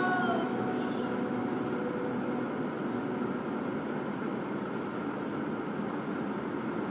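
Steady vehicle noise heard from inside a car moving slowly in traffic. Music stops just after the start.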